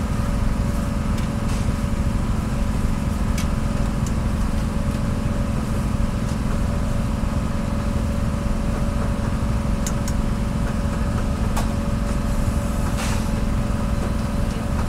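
An engine running steadily, a constant low drone with a steady hum in it. A few light clicks sound over it now and then.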